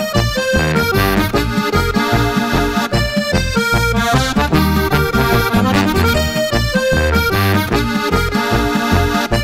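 Accordion music with a steady beat.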